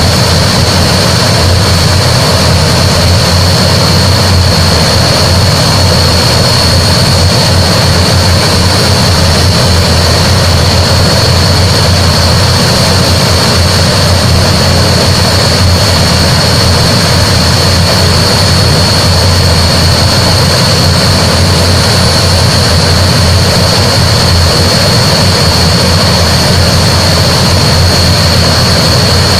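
Antonov An-12's Ivchenko AI-20 turboprop engines running steadily and loud: a constant high whine over a low drone, with no change in pitch or level.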